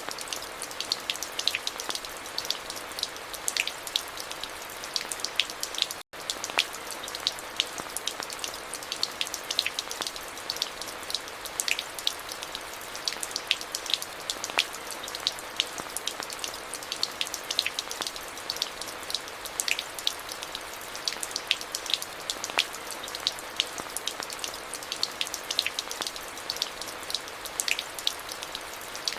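Steady rain falling, with many distinct close drop hits over an even hiss of rainfall. A split-second dropout to silence about six seconds in.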